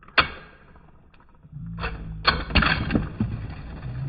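Two plastic Beyblade spinning tops whirring and clashing in a plastic Hypersphere Beystadium. There is a sharp clack about a quarter second in, then a steady low hum from about a second and a half, with a run of hard knocks from about two seconds on.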